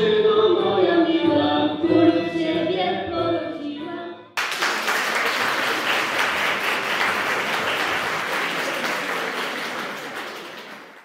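Group of young voices singing with violin accompaniment, giving way suddenly about four seconds in to audience applause, which fades away near the end.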